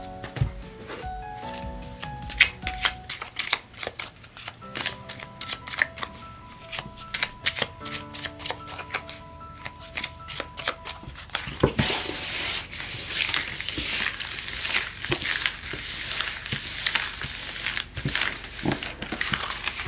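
A deck of tarot cards being shuffled by hand, with many quick card clicks and riffles. From about twelve seconds in, the cards are spread out and swirled across the tabletop in a continuous, louder rustling swish. Soft background music with a melody plays throughout.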